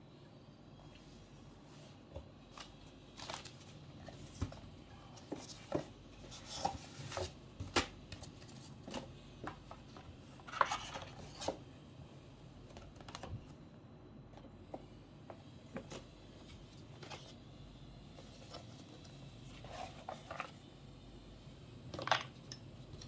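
Irregular clicks, taps and short scrapes of hard objects and packaging being handled as a mechanical keyboard is unboxed, with a few louder knocks among them.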